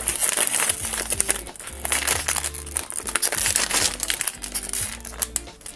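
Shiny plastic blind-box bag crinkling over and over as hands squeeze and handle it, with background music.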